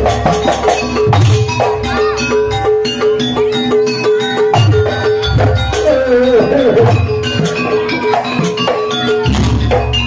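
Live jaranan campursari band music: a metallophone note struck over and over, deep drum strokes now and then, and a singer's wavering vocal line, strongest about six to seven seconds in.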